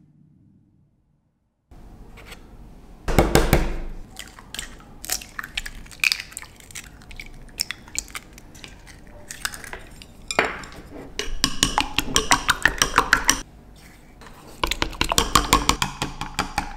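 Eggs being cracked and dropped into a glass Pyrex measuring jug, then beaten with chopsticks: a fast run of clicks of the chopsticks against the glass, in two spells in the second half.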